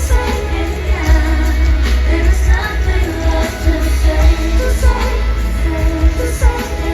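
Pop dance music played live through a concert sound system, with a heavy pulsing bass beat and a woman singing.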